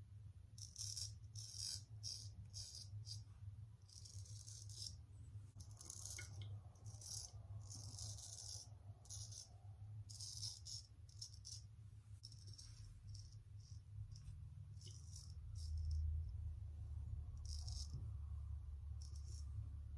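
Straight razor scraping stubble off the neck in a quick series of short, light strokes, each a brief dry rasp. A low steady hum sits underneath.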